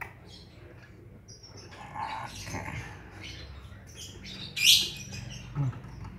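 Hand-fed lovebird chicks chirping in short, scattered high calls, with one loud, sharp call about four and a half seconds in.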